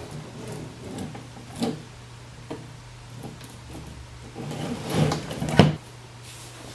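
Knocks, clunks and scraping of a computer power supply being handled and fitted into a metal case. There are a few scattered knocks, then a louder cluster near the end with one sharp knock the loudest, over a steady low hum.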